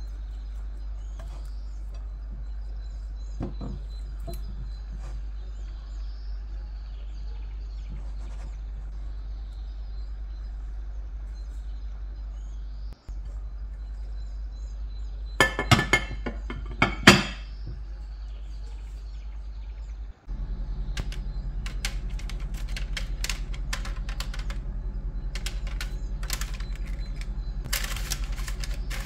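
Steady low hum with faint bird chirps. Midway come a few loud sharp clacks, and near the end a pastry brush scratches and crinkles rapidly across oiled parchment paper in a baking tray.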